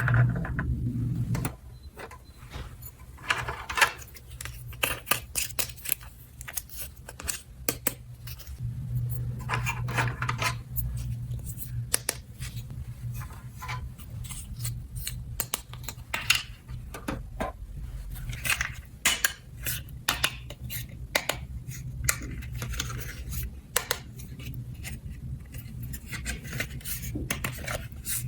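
Small plastic toy pieces clicking and clattering against each other as they are handled, over a low steady hum.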